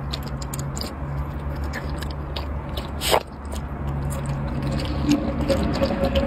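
A puppy eating from a bowl of milk-soaked food: wet lapping and chewing with many small clicks, one louder click about three seconds in, over a steady low hum.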